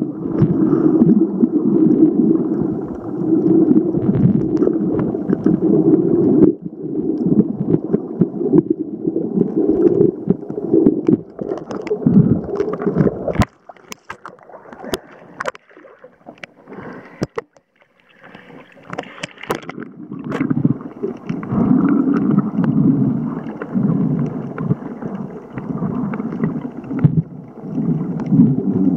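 Water moving against an underwater camera while snorkeling: a rough, low rumbling gurgle. About halfway through, the camera comes up above the surface for a few seconds, where it goes quieter with a few sharp clicks and splashes, and then it goes back under and the rumbling returns.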